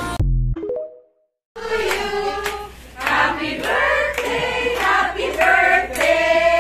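Recorded music fades out about a second in, and after a brief silence a group of women sings together, with sharp hand claps through the singing.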